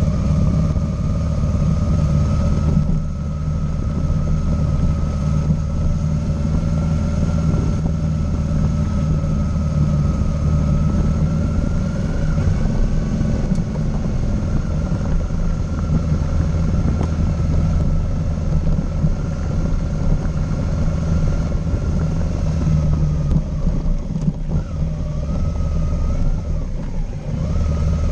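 Motorcycle engine running steadily at low road speed on a dirt road. A few seconds before the end the engine note drops and wavers, then picks up again.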